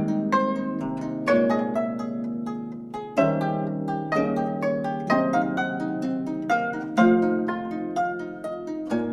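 Gayageum ensemble playing: several Korean plucked zithers sounding overlapping plucked notes and ringing chords, with strong accented plucks about three, four and seven seconds in.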